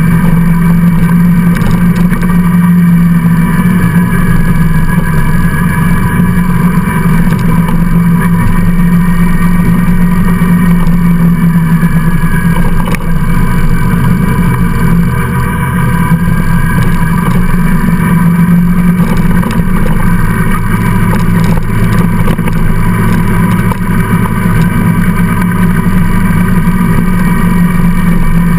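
Motorcycle engine running steadily at cruising speed, heard from the rider's own bike, with road and wind noise.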